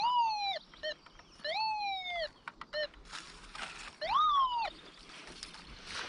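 Electronic signal tones from a metal detector. Three longer tones swoop up in pitch and slide back down as it passes over a target, with two short beeps between them. Rustling of soil and leaves comes in about halfway through.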